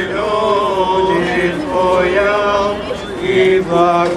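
Bulgarian Orthodox priest chanting the prayers of a blessing of the waters (vodosvet): a male voice singing in held notes that move up and down in pitch.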